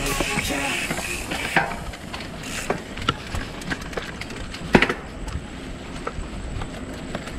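Mountain bike rolling over a rough dirt trail, the bike rattling and knocking over bumps, with one sharp knock a little past halfway.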